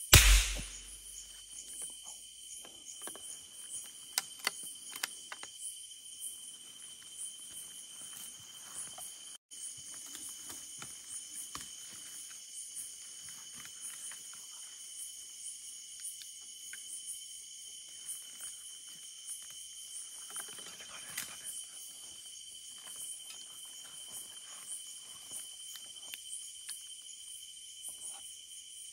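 Night insects chirping steadily in a high, unbroken drone. There is a loud thump right at the start and a few sharp clicks about four to five seconds in.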